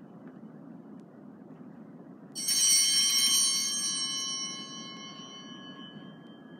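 Altar bell rung once at the elevation of the consecrated chalice: a bright ring of several high tones that starts suddenly a little over two seconds in and fades away over about three seconds.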